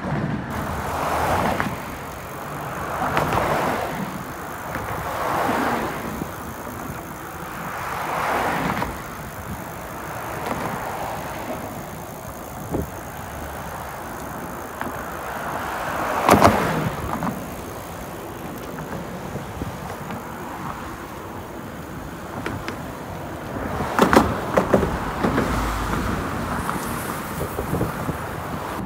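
Road traffic passing one car after another in the lanes alongside, each pass swelling and fading, with two louder passes, a little past halfway and near the end.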